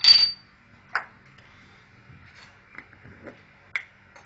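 Metal spoon clinking against dishes: one sharp ringing ping at the start, a knock about a second in, then a few light clicks.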